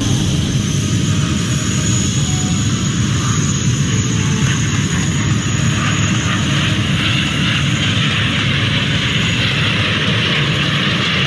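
Jet engines of a formation of aerobatic jets flying past, a loud, steady rushing noise.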